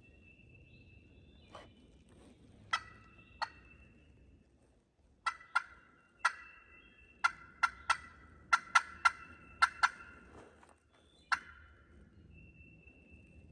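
Turkey yelps and clucks: a couple of sharp notes, then a quick run of yelping over about five seconds, and a last note near the end.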